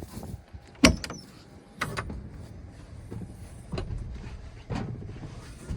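Tractor running low under a series of sharp knocks and clunks in the cab: two loud ones about a second apart near the start, then fainter ones later.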